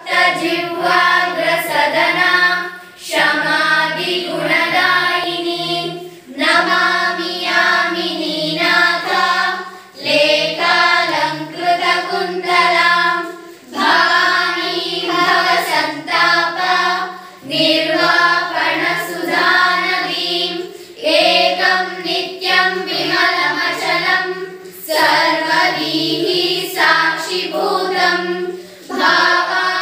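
A group of schoolchildren singing together, a Guru Vandana song in praise of teachers. It comes in phrases of three or four seconds, each ending in a short breath pause.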